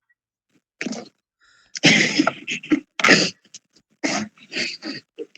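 Several short, breathy vocal sounds from people, loudest about two to three seconds in: unclear murmuring or laughing rather than plain speech.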